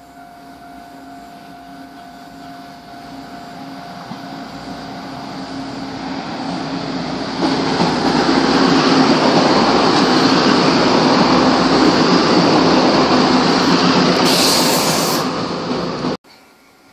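Diesel multiple-unit passenger train approaching and passing close by. Its engine tone grows louder for about seven seconds, then there is a loud steady rush of engines and wheels as the cars go by, with a brief high hiss about fourteen seconds in. The sound cuts off suddenly near the end.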